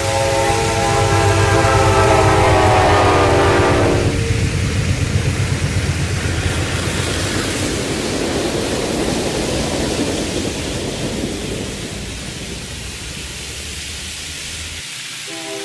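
N-scale model trains running on the layout. For the first few seconds a motor whine slowly falls in pitch. After that the wheels rattle and rumble steadily on the track, getting a little quieter near the end.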